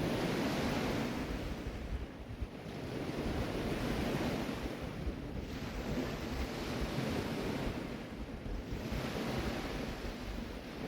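Ocean surf breaking and washing up the beach, each wave swelling and fading about every three seconds, with wind buffeting the microphone.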